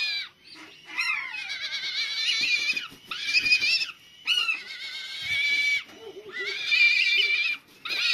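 Young honey buzzard calling again and again: high, wavering, drawn-out whistling screams, each about a second long, with short breaks between them.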